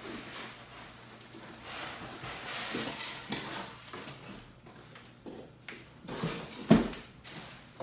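Cardboard shipping box and styrofoam packing being handled: irregular rustling and scraping with a few light knocks, and one loud thump near the end as a piece is put down on the table.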